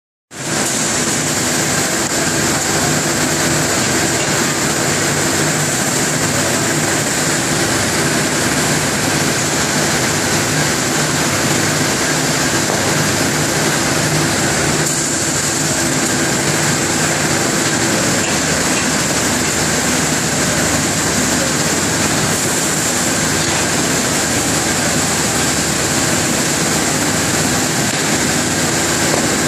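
Steady machinery noise of a glassworks: the glass furnace's burners and blowers running without a break, a constant hiss over a low steady hum.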